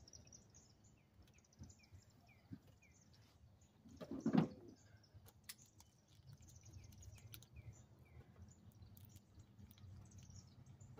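Faint outdoor birdsong: many short, repeated, falling chirps from small birds. About four seconds in comes one brief, louder, low sound of a man's voice.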